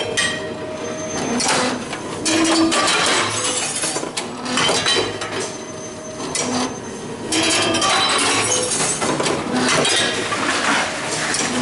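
Glass bottles clinking and clattering in repeated bunches as they are handled and fed into a Tomra reverse vending machine.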